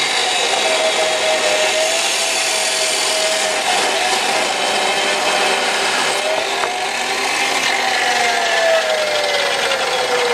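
Power tool working square brass tubing: a steady, loud rasping grind with a motor tone underneath that drops in pitch over the last few seconds, as when the tool is loaded harder.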